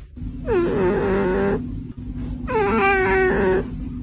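Cat giving two long, drawn-out meows, each about a second long, over a steady low hum.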